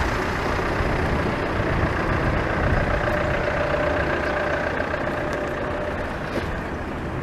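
Road traffic passing on a street: vehicle engines and tyre noise as a steady hum that eases off slightly near the end.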